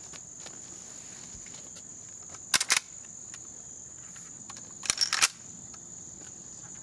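Insects, likely crickets, chirring steadily in a high, thin, even band. Two short clusters of sharp clicks come about two and a half and five seconds in, from handling at the shooting bench.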